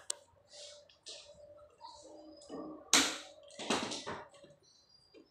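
Hands working on the bare chassis of a window-type air conditioner: scattered clicks and taps with short scraping rustles, the loudest about three seconds in and again just after.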